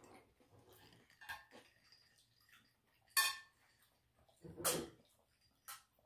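Quiet mealtime sounds from a glass water mug. A sharp glass clink rings briefly about three seconds in, and a louder drinking gulp follows about a second and a half later, with soft mouth and eating sounds around them.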